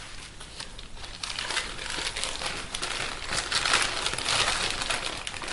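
Plastic packaging crinkling and rustling as a new replacement laptop keyboard is handled and unwrapped. It is a dense, crackly rustle that starts about a second in and keeps going.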